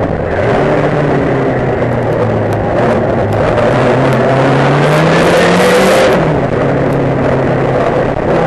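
Saloon race car's engine heard from inside the car under hard acceleration. The revs climb steadily for about six seconds, then fall sharply and run steadier as the car lifts or changes gear.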